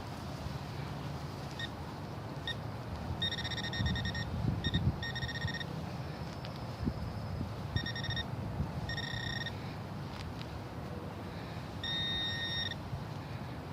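Handheld metal detecting pinpointer beeping at one high, steady pitch in a string of short and longer bursts as it is probed through a dug plug of soil, sounding on a buried coin.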